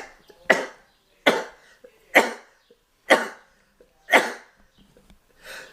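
A man sneezing in a rapid fit: five sharp sneezes, about one a second.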